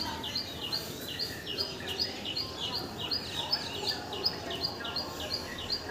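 A bird calling over and over: a short, high chirp repeated evenly about three times a second.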